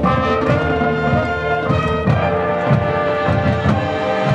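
Marching band playing: the brass section holds chords over drum hits.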